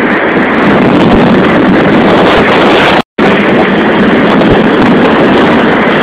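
Strong gale buffeting the microphone: a loud, steady rushing roar, broken by a split-second gap about halfway through.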